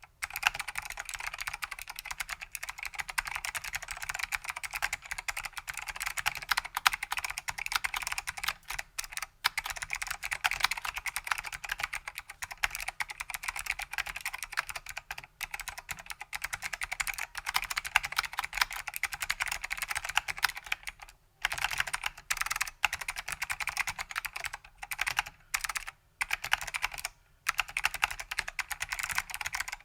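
Fast continuous typing on a vintage Datacomp DFK-191 keyboard with stock SKCM White Alps switches and ABS keycaps: dense clicky keystrokes with a few short pauses in the second half.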